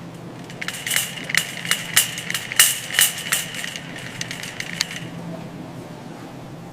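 A cat crunching dry food: a rapid run of crisp crunches from about a second in until about five seconds in, over a steady low hum.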